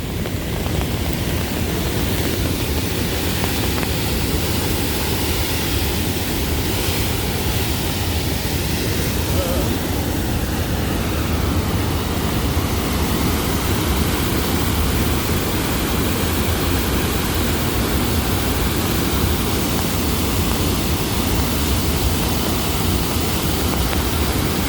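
Sol Duc Falls running high and strong after heavy rain: a steady, low rush of falling water.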